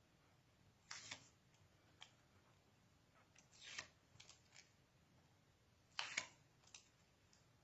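Faint handling of cardstock on a cutting mat: a few short taps and clicks, a brief paper rustle a little after three seconds, and a louder pair of taps about six seconds in.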